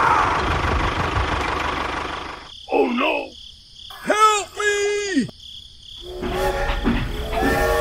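A small motor running with a rough, even noise that fades out about two and a half seconds in, followed by two short dubbed voice exclamations over silence, then background music starting near the end.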